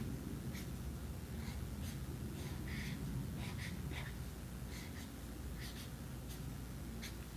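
Black felt-tip marker drawing lines on paper: a series of short, irregular scratchy strokes, over a faint low hum.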